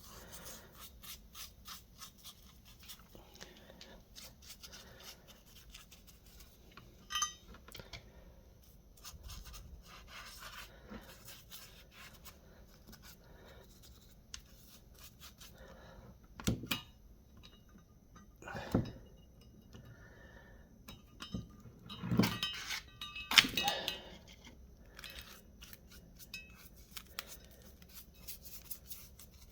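Brush strokes scrubbing rust converter onto a steel wheel spindle: a quiet run of small scratchy ticks, with a few louder knocks of the part or tools being handled in the second half.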